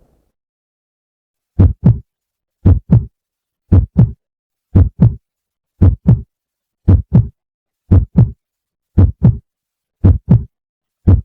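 Heartbeat sound effect: a steady lub-dub of paired low thumps, about one beat a second, starting after a short silence.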